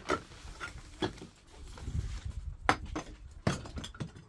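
A few sharp knocks and scrapes of masonry work as mortar and cement blocks are set along the top of a mud-brick wall, over a low rumble of wind on the microphone.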